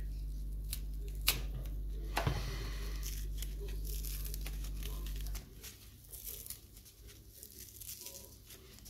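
Tape and wrapping on a small package being torn and crumpled off by hand: rustling, crinkling and small clicks, with a longer tear about two seconds in. A low steady hum underneath cuts off about five seconds in.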